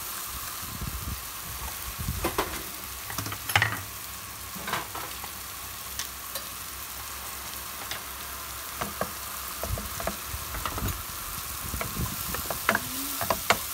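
Sliced mushrooms and minced garlic sizzling in oil in a nonstick frying pan, a steady hiss as the garlic browns. A wooden spatula stirring them makes scattered scrapes and knocks against the pan, the loudest about three and a half seconds in and several more near the end.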